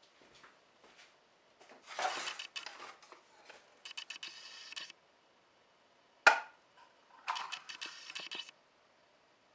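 Small laser-cut plywood box being handled and its lid opened: wooden parts scraping and rattling in short bursts, with one sharp wooden knock about six seconds in.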